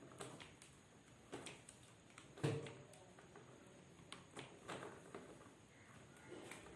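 Faint clicks and taps of pliers handling and gripping insulated copper wires at a plastic switch box, with the sharpest knock about two and a half seconds in.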